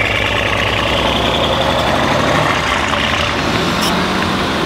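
Mercedes S63 AMG's twin-turbo V8 running loud through an HMS aftermarket exhaust as the car drives away.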